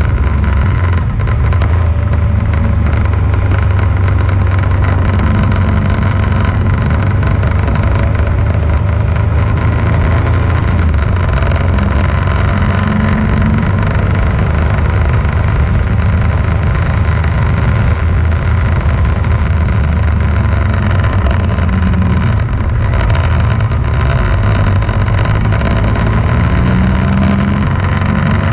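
Motorcycle running along a winding road with a steady low rumble, its engine note rising and falling a little through the bends.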